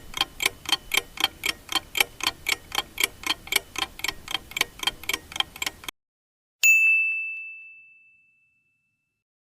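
Countdown timer sound effect: clock-like ticking about four times a second for about six seconds, stopping suddenly, then a single bell ding that rings out and fades, marking time up.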